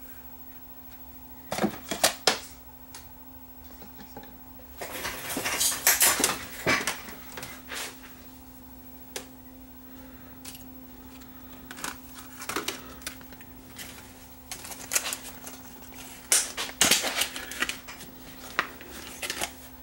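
Small parts and tools handled on a workbench: scattered clicks, taps and light rattles in several clusters, over a faint steady hum.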